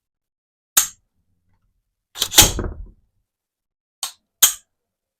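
AR-15 dry-fired with a Larue MBT-2S two-stage trigger: a sharp click of the hammer falling, then a louder double clack with a low thud as the action is cycled to recock, then two lighter clicks.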